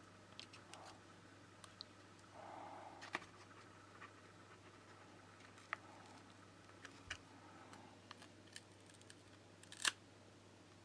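Faint, scattered clicks and soft scraping of a plastic guitar pick prying around the glued edge of an iPod touch (6th generation) screen, the sharpest click about ten seconds in. A low steady hum runs underneath.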